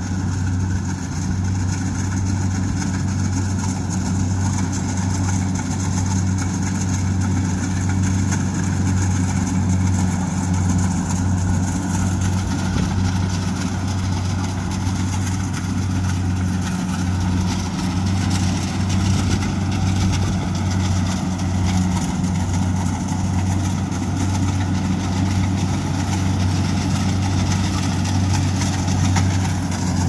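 Kubota rice combine harvester running steadily under load as it cuts the crop, a constant low diesel engine drone with the machine's threshing clatter, growing a little louder as it comes closer.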